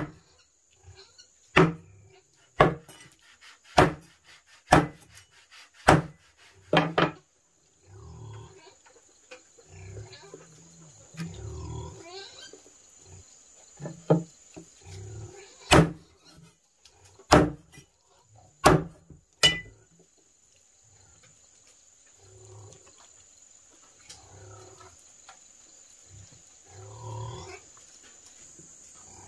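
A run of sharp, loud knocks about once a second, a pause, then another run, over a steady high drone of crickets.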